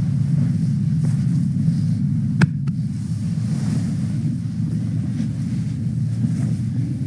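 Steady low hum with a single sharp click about two and a half seconds in.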